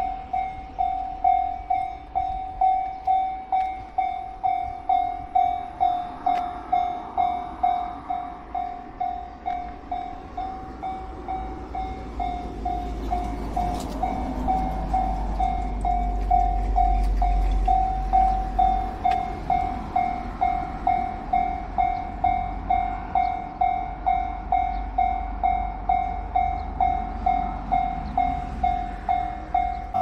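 Japanese level crossing warning bell ringing steadily, a bright electronic ding repeating about twice a second, signalling an approaching train. A low rumble swells and fades in the middle.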